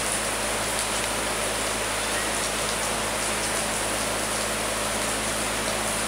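Steady simulated rain in a rain-test room, falling on a wet wooden slatted floor.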